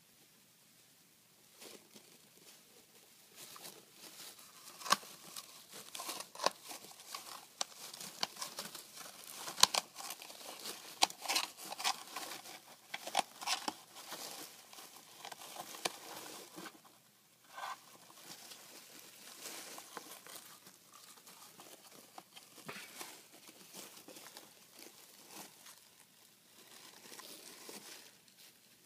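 Wood-shavings bedding rustling and crackling as a hedgehog digs and rummages through it: irregular crisp crackles, densest in the first half, a brief lull, then lighter rustling.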